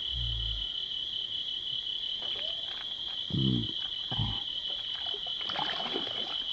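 A steady high-pitched insect chorus with a few low thumps, and splashing near the end as a fish thrashes at the surface of the weed-covered water.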